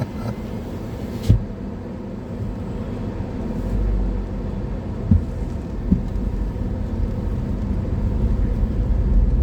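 Car interior noise while driving: a steady low rumble of road and engine that grows a little louder about four seconds in, with one sharp knock about a second in and two soft thumps around five and six seconds.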